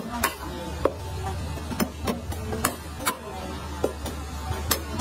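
Knife or cleaver chopping meat on a cutting board: sharp, irregularly spaced knocks, about eight in five seconds, over a low steady hum.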